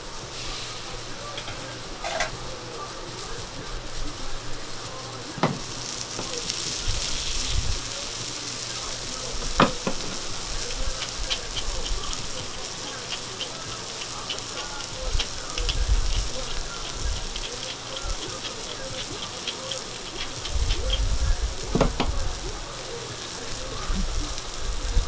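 Beef steaks sizzling on a hot, oiled flat steel teppan griddle: a steady frying hiss. A few sharp clicks stand out, and there is a run of light quick ticking about halfway through.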